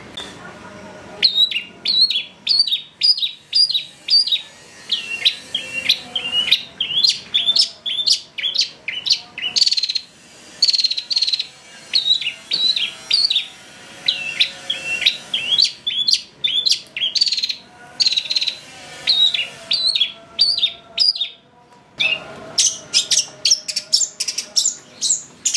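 Long-tailed shrike singing an excited, rapid run of short, sharp notes, about three a second, with a briefly held note near the middle and a short pause about four-fifths of the way through.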